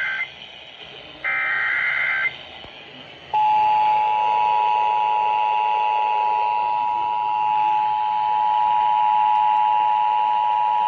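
Emergency Alert System encoder tones on a radio broadcast. The end of one raspy SAME digital header burst is followed by a second burst of about a second. About three seconds in, the steady two-tone EAS attention signal begins: a harsh dual tone near 853 and 960 Hz that holds without change.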